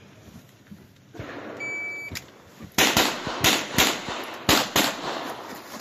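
A competition shot timer gives its start beep, and about a second later a pistol fires a fast string of shots, mostly in quick pairs (double-taps on the targets).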